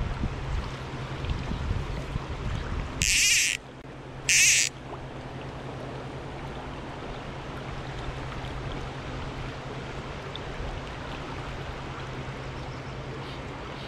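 Wind buffeting the microphone, which drops away about three seconds in. Then two short, loud rasping bursts about a second apart, followed by a steady hiss of flowing river water.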